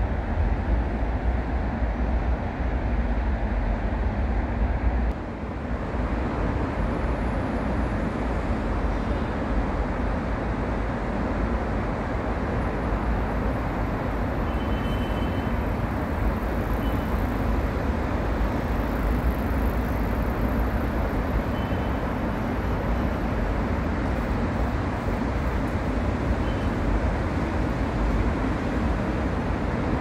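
Steady distant city road traffic: a continuous low rumble and hiss, with a brief drop in level about five seconds in.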